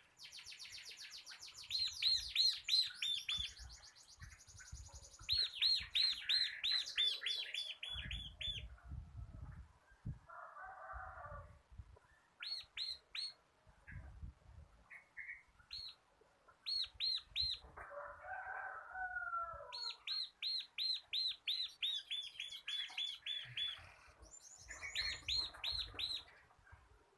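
Bar-winged prinia (ciblek) singing its fast drilling song: rapid runs of sharp, high repeated notes in several bursts with short pauses. Twice a lower, harsher chattering comes in, with dull low thumps scattered throughout.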